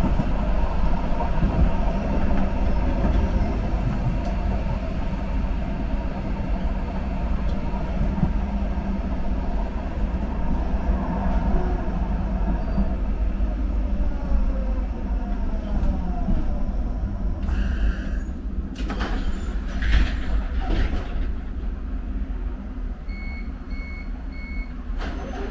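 Subway train running with a steady rumble, its motor whine falling in pitch as it slows. A few knocks follow, then three short beeps of the door signal near the end.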